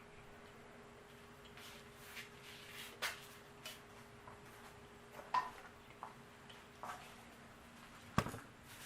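Scattered light clicks and taps of small parts being handled and fitted on an engine, the sharpest a little after eight seconds, over a faint steady hum.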